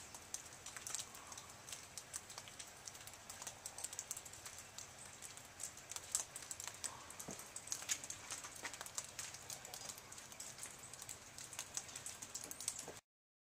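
Sleet or ice pellets ticking and pattering on hard surfaces: a dense, irregular run of sharp little clicks over a faint hiss. The sound cuts out abruptly near the end.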